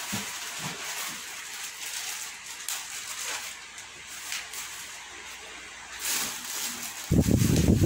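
Thin plastic bag covering a TV screen rustling and crinkling as it is handled. A louder voice comes in near the end.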